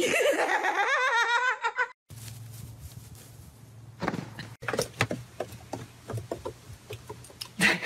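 A person laughing hard for about two seconds, the pitch wobbling quickly up and down. Then a quieter stretch with a low steady hum and scattered short thumps and clicks.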